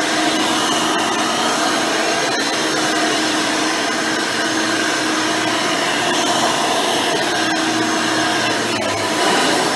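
Hoover Elite 600 upright vacuum, fitted with a 7-amp motor and 20-blade fan, running steadily as it vacuums carpet, with a few faint clicks over the steady motor noise.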